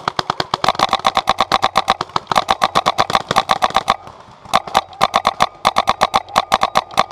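Electronic paintball marker firing rapid strings of shots, about ten a second, with a steady whine under the shots; the firing breaks off briefly about two seconds in and again about four seconds in.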